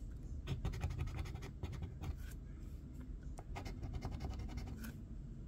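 A coin scraping the latex coating off a paper scratch-off lottery ticket, in many short, quick, irregular strokes.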